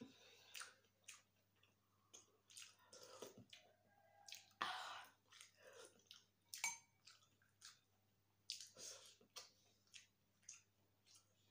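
Quiet, close-up eating sounds: wet chewing and mouth clicks in an irregular run, with a louder slurp of soup from a spoon about five seconds in and a few light clicks of the spoon.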